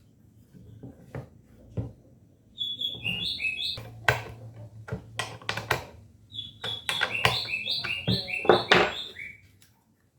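A small bird singing two phrases of short, high chirps that step down in pitch, over a series of sharp knocks.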